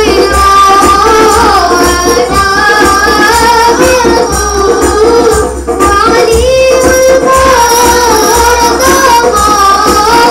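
A group of boys singing a nasyid in unison through microphones, one melodic line carried over a steady hand-percussion rhythm.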